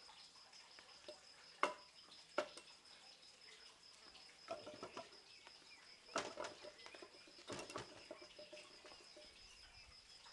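Sharp wooden knocks as arms strike the wooden posts of a Saam Sing Jong training set: one knock, another soon after, then short flurries of several knocks around the middle and again a little later.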